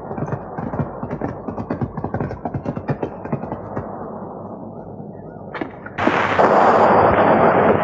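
Horses galloping on dirt: a rapid, irregular clatter of hoofbeats that thins out and fades over about five seconds. About six seconds in, a loud, even rushing noise starts suddenly.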